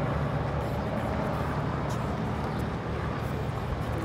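Two helicopters flying overhead, their rotors giving a steady low, pulsing beat.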